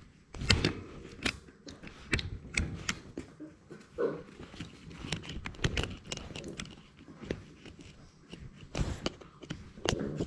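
Labrador Retriever puppy mouthing and chewing on a GoPro, its teeth and muzzle knocking and scraping against the camera in irregular close-up clicks and knocks.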